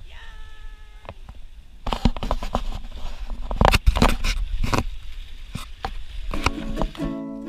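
Knocks, scrapes and splashes from a snorkeller climbing down rough rock steps into shallow sea water with a handheld camera and gear. A brief steady tone sounds at the start, and music begins near the end.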